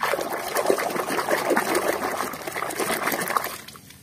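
Water sloshing and splashing in a tub as a hand swishes a toy through muddy, soapy water to wash it, with a rapid patter of small splashes that dies away about three and a half seconds in.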